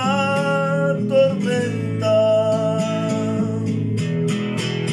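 A man singing a slow Spanish worship song over a strummed acoustic guitar backing, drawing out the word "tormenta" in long held notes.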